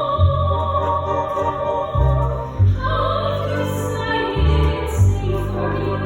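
A woman singing long held notes in an operatic style, moving to a new pitch partway through, over a low instrumental accompaniment.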